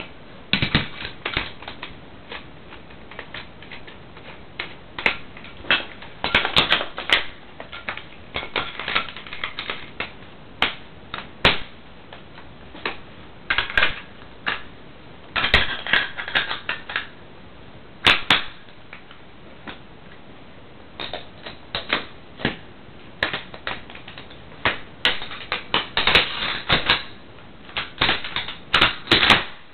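AK-74 rifle being reassembled by hand at speed: an uneven string of sharp metal clicks, clacks and short rattles as parts are fitted and snapped into place, with brief pauses between.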